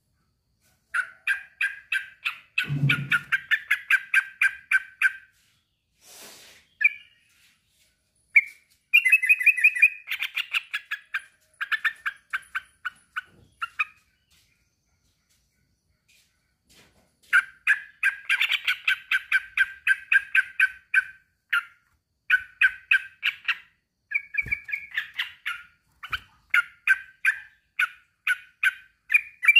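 Male yellow-vented bulbul (trucukan) singing in fast runs of short, bubbly chattering notes, about four or five a second, in several phrases with short pauses between them: a male's territorial call to a rival.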